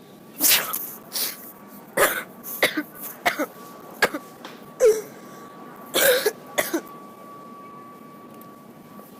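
A person coughing and clearing their throat in a quick run of about a dozen short, sharp coughs, stopping about seven seconds in.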